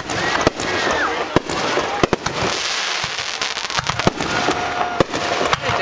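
Fireworks aerial shells bursting overhead: a string of sharp, irregularly spaced bangs over a continuous crackling hiss.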